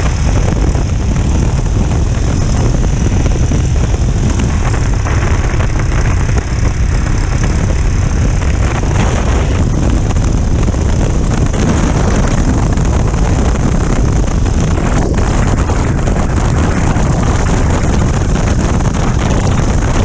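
Wind buffeting the microphone of a motorcycle-mounted camera at road speed, with the Royal Enfield Himalayan's single-cylinder engine and tyre noise running underneath. The sound is a loud, steady rumble.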